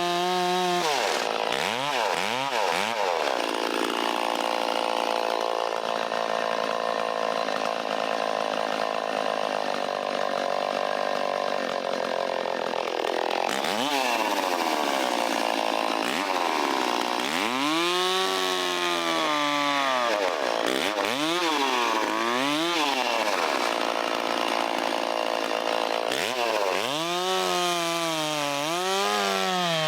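Stihl 034 two-stroke chainsaw revved from idle and held at high speed through a cut for about ten seconds, then revved up and down several times before settling back to idle near the end.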